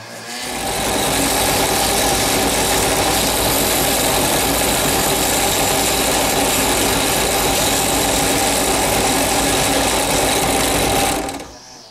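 Bench drill press motor running steadily under load, with several steady humming tones over a steady whirr; it starts about half a second in and stops near the end.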